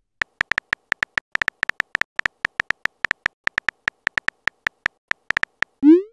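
Phone keyboard typing sound effect: a quick, uneven run of short identical clicks, about six a second, as a text message is typed letter by letter. About six seconds in it ends with a short rising swoop as the message is sent.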